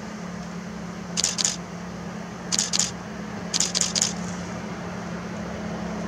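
Steady low drone of the Lyd1 narrow-gauge diesel locomotive's engine, still far off. It is overlaid by three short clusters of dry crackling rustles, two, two and then three or four in quick succession, which are louder than the drone.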